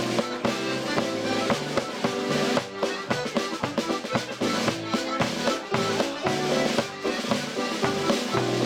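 Irish traditional dance tune played on two accordions with tenor banjo, a snare drum and wood block tapping out the beat in quick even strokes.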